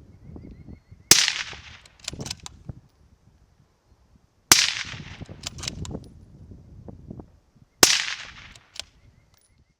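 Three shots from a 6.5 Creedmoor rifle fitted with a Silencerco Harvester suppressor, about three and a half seconds apart. Each is a sharp report with a trailing echo and a few small clicks after it.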